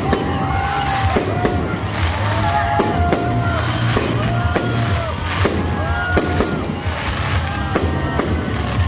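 Aerial fireworks shells bursting and crackling in quick succession, with music playing alongside.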